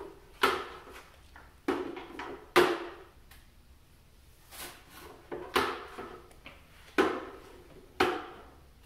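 Sweeping with a long-handled broom and a plastic upright lobby dustpan on a hard floor: about seven short, sharp scrapes and knocks, irregularly spaced, as the broom is swept and the dustpan is set down and moved.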